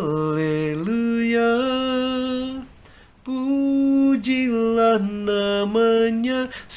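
A man singing a slow worship song solo and unaccompanied, holding long notes that step up and down in pitch, with a short breath pause about three seconds in.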